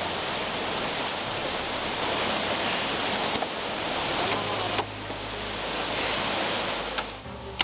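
Steady rush of a jungle stream or waterfall, with a couple of sharp clicks. The rushing cuts off suddenly near the end.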